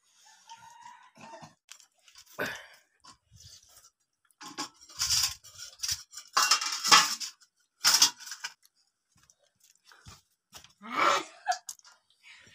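Stainless steel plates, bowls and a spoon clinking and scraping as people eat a meal by hand, with some chewing; the clatter comes in short scattered bursts, loudest about halfway through.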